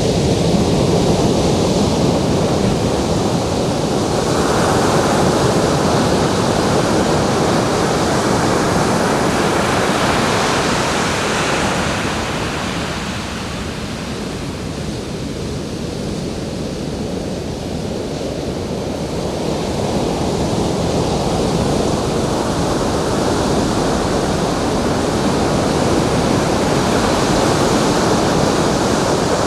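Ocean waves breaking and washing on a beach, a continuous rushing surf that swells and eases slowly, dropping back for several seconds midway before building again.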